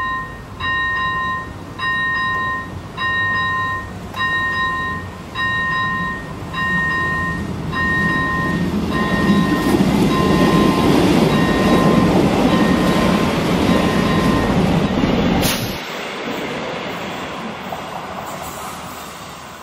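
A level-crossing warning bell, the ZV-01 electronic bell of an AŽD 71 crossing signal, rings a repeated electronic ding about once every 1.2 seconds and stops a few seconds before the end. Over it a passing passenger train's rumble swells to its loudest in the middle, then falls away as the train clears the crossing.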